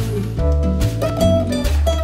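Instrumental background music with guitar and drums.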